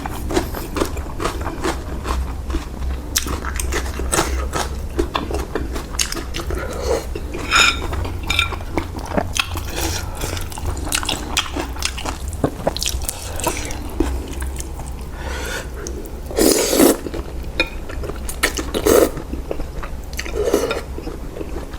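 Close-miked eating of pork noodle soup: chewing, wet smacking and slurping, with small clicks of spoon and chopsticks on the bowl and a few louder slurps near the end, over a steady low hum.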